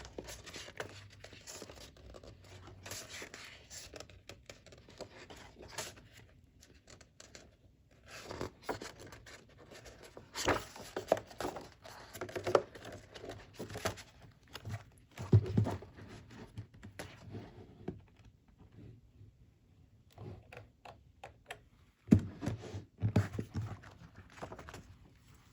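Packaging of a photo book being handled and opened: irregular bursts of rustling and scraping, with a few soft thumps around the middle and near the end.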